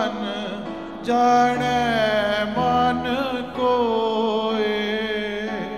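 Gurbani kirtan: a man sings long, ornamented held notes over steady sustained accompanying tones, in phrases with brief breaks about a second in and again midway.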